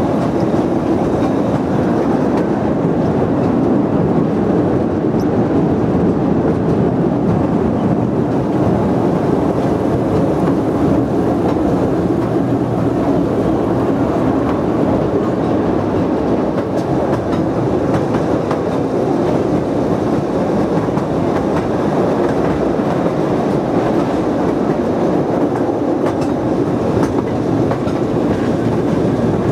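Steam train running along its track, heard from an open carriage: a steady noise of the carriages and wheels on the rails.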